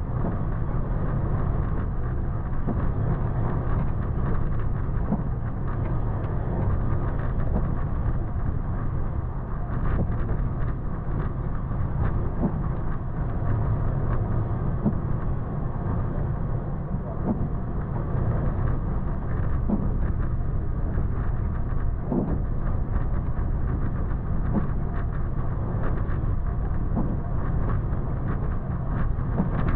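Toyota FJ Cruiser's 4.0-litre V6 running at low speed as the truck crawls down a rough trail: a steady low rumble with frequent small knocks and rattles.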